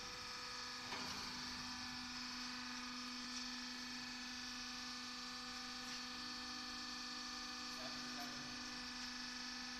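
Steady machinery hum made of several fixed tones, with one click about a second in.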